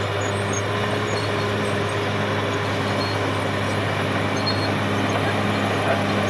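Caterpillar D6R XL bulldozer's diesel engine running steadily with a low, even drone.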